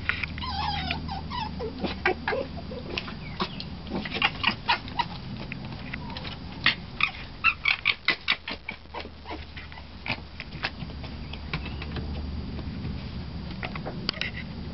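Red fox cubs at a shallow tray of water: a short wavering squeal about half a second in, then a run of sharp wet clicks and smacks as the cubs snatch and chew food, thickest around the middle.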